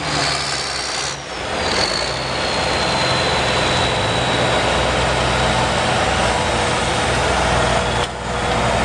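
International 1086 pulling tractor's engine running loud and steady, with a thin high whistle that slides slowly down in pitch and stops about eight seconds in.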